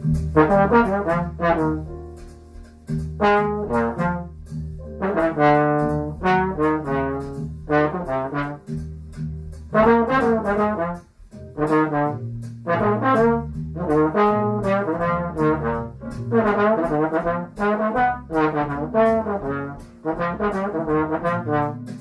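Trombone playing a slow jazz ballad melody in phrases of sustained notes, with short breaks for breath between phrases.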